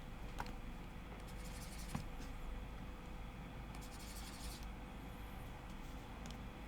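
Stylus scratching over a graphics tablet in short strokes during digital sculpting, with a couple of sharp clicks, over a steady low hum.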